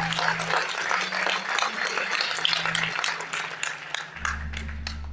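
Congregation applauding, the clapping thinning out into a few separate claps in the last second or two.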